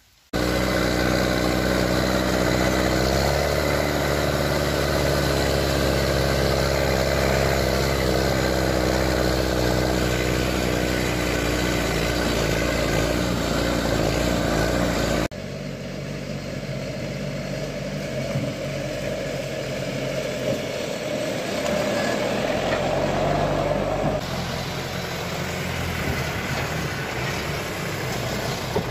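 Diesel engine of a John Deere log skidder running steadily, heard close up from on the machine as it drives. After an abrupt cut about halfway through, the engine is heard from beside the machine, a little quieter, and its note shifts near the end.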